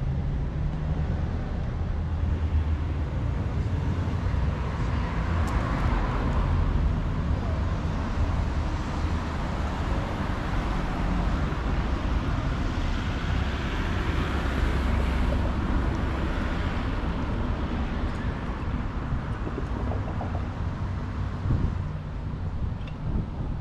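Steady city street noise from road traffic, with a constant low rumble of wind on the microphone.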